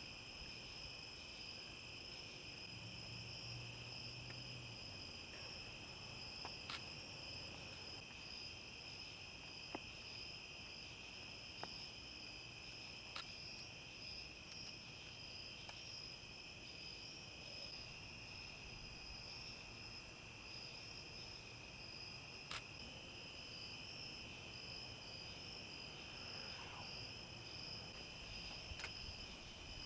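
Night insect chorus of crickets: a steady, faint, high-pitched trilling that runs on without a break, with a few sharp little clicks scattered through it.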